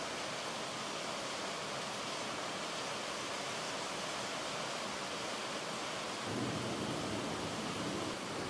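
Steady, even hiss that starts abruptly, with a slightly fuller low rumble added from about six seconds in.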